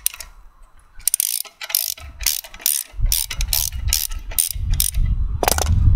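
Socket ratchet clicking as a bolt is undone, a series of separate sharp clicks a few times a second. A low rumble joins underneath about halfway through.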